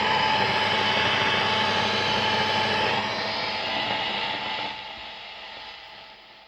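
Marshall DSL1HR valve amp head hissing and humming with no guitar played, on its ultra gain channel with the controls turned up: the amp's idle noise. The hiss drops a step about three seconds in and fades well down near the end.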